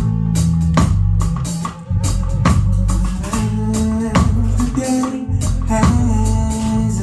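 Live band playing an instrumental groove: a bass line, drum kit hits on a steady beat, and held chords above.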